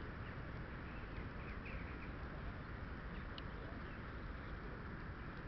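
Steady outdoor rumble of wind on the microphone, with a few faint bird chirps in the first half and one brief sharper chirp a little past the middle.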